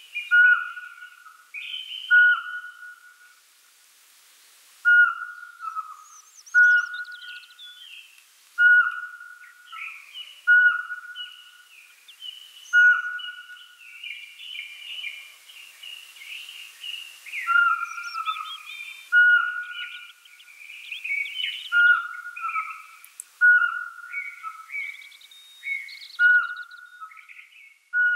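An owl calling a long series of short whistled notes, about one a second, each with a slight fall at the end. Higher chirps of other birds join in around the middle.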